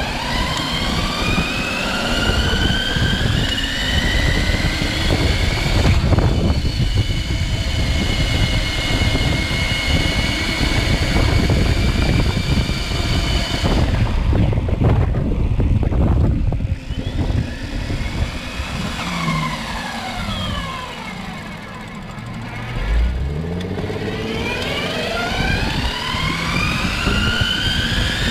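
CYC X1 Pro mid-drive motor on an electric bike whining under throttle. The pitch rises as it accelerates, holds steady at speed, falls as the bike slows past the middle, and rises again near the end, over heavy wind rumble on the microphone.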